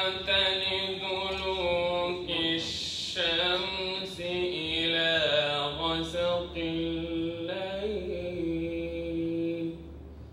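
A man reciting the Quran in Arabic in the melodic chanted style (tajwid), holding long notes with ornamented turns between them. His voice stops shortly before the end.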